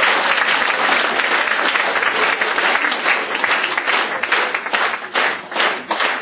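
Theatre audience applauding after a punchline: a dense wash of clapping that thins out over the last couple of seconds into scattered single claps.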